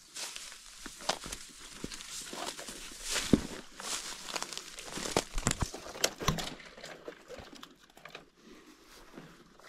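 Footsteps crunching and rustling through dry leaves and brush, with a few sharp snaps.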